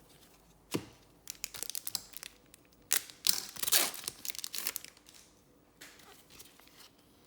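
Crinkling and tearing of a trading-card pack wrapper being handled, in short crackly bursts after a sharp click, loudest about three to four seconds in.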